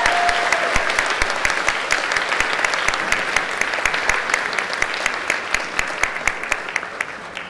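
Audience clapping, a dense patter of many hands that thins and fades away near the end.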